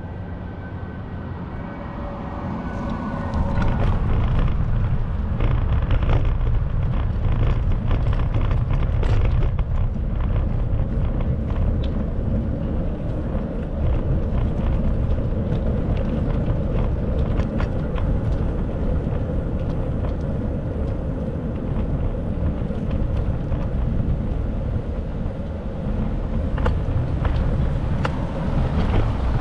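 Steady low rumble of road and wind noise from a bicycle ride, growing louder about three seconds in, with scattered light clicks and rattles.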